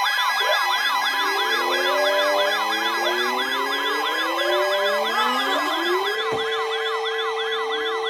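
Emergency-alert siren tones: a fast rising-and-falling yelp repeating about three times a second over steady high tones, with slower rising wails overlapping it. About six seconds in the wails give way to a steady lower tone.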